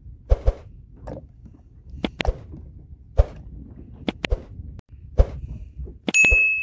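Dull thumps about once a second, some in quick pairs. About six seconds in, a bright electronic ding rings out: the notification chime of an on-screen subscribe-button animation.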